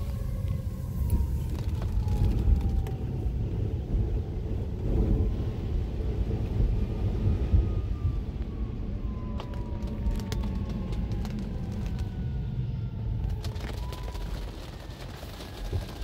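Steady low rumble of a car and wet traffic heard from inside the car, with a fire engine's siren faintly wailing in the distance, its pitch slowly falling and rising.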